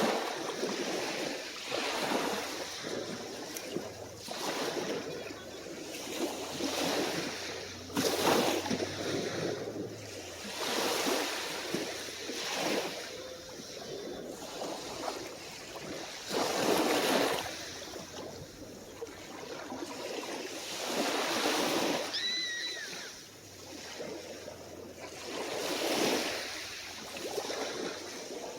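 Small waves breaking and washing onto the shore, each swell rising and falling every two to four seconds. A brief high call sounds once, about two-thirds of the way through.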